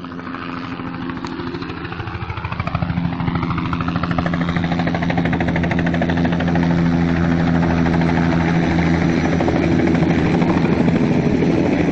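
Helicopter approaching and coming in low to land, its rotor blades chopping rapidly over a steady engine drone, growing steadily louder as it nears. A whine falls in pitch over the first few seconds.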